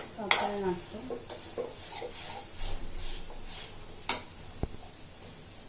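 Metal spoon stirring and scraping a thick masala of onion, tomato and sorghum flour around a metal kadhai, with a few sharper scrapes against the pan and a light sizzle under it: the flour is being roasted in the masala on low flame.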